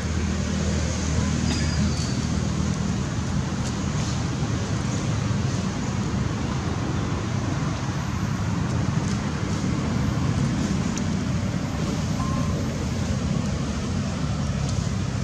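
Steady outdoor background rumble like distant road traffic, an even low hum and hiss that doesn't change, with a couple of faint brief high chirps.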